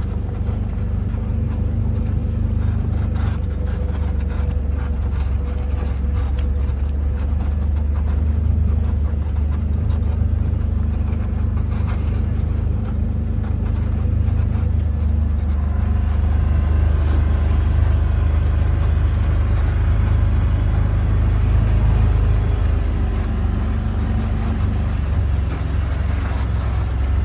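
Can-Am side-by-side's engine running steadily on the move, a continuous low rumble with a faint steady hum above it.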